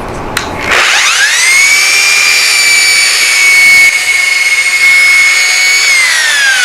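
Electric belt sander switched on with a click and whining up to speed within about a second, running steadily, then switched off near the end and winding down with a falling whine.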